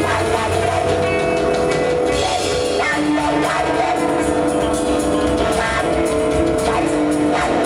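Live krautrock band jam: electric guitar holding sustained notes over bass and drum kit, with a santur struck with hammers.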